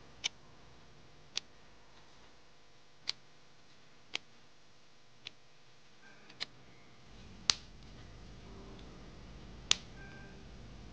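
About eight sharp, separate clicks at uneven intervals as steel T-pins are handled and pushed through damp crochet into a foam blocking mat.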